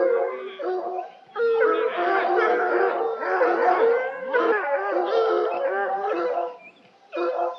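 Several dogs howling together, with overlapping long pitched howls that waver and slide. There is a brief break just after a second in, and a few short howls near the end.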